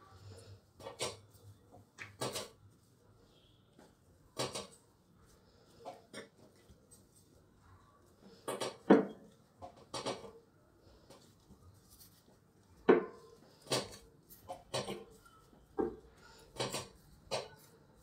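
Gloved hands squeezing and kneading crumbly rice-flour and whole-wheat dough in a glass bowl: irregular squishes and knocks against the bowl, about a dozen in all, the loudest near the middle. The dough is being worked until it comes together.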